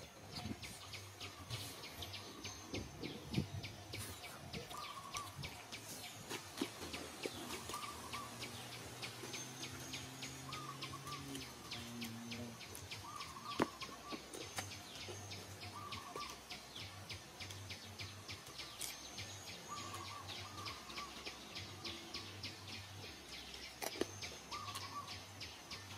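Forest ambience: a bird repeating a short call every two to three seconds over a fast, even, high-pitched insect pulsing.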